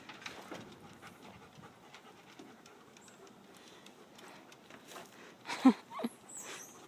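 Dog panting, with a short, loud pitched sound that bends in pitch about five and a half seconds in.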